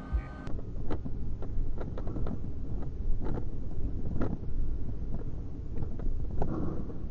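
Steady low rumble of a car's engine and tyres on a wet road, heard from inside the car through a dashcam microphone, with scattered short clicks and ticks.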